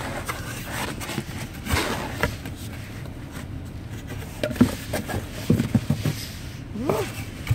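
Cardboard box and its crinkle-cut paper shred being handled: scattered rustles and soft knocks, busiest about four to six seconds in, over a low steady rumble.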